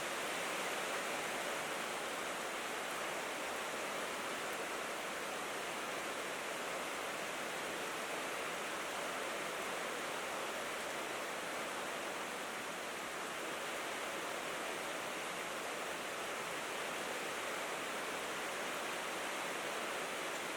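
Steady rain falling on a tin roof: an even, unbroken hiss.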